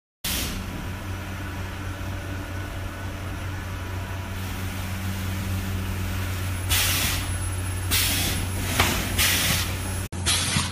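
EPE foam sheet feeding and cutting machine running with a steady motor hum, and from about seven seconds in, four or five short hisses of air about a second apart, like pneumatic valves venting.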